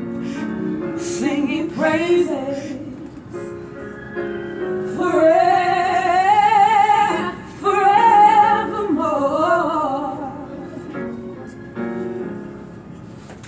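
A woman singing solo, holding long notes with a wide vibrato. She is loudest in the middle of the passage and softer toward the end.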